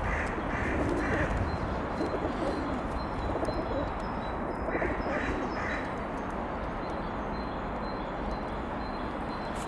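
Pigeons cooing, with a small bird chirping in two short runs of three or four notes, near the start and about five seconds in, over a steady low background noise.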